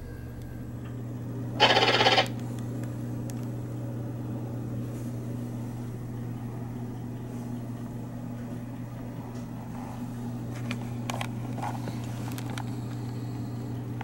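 Steady low hum inside a stationary passenger railcar, with one loud half-second burst of noise about two seconds in and a few light clicks near the end.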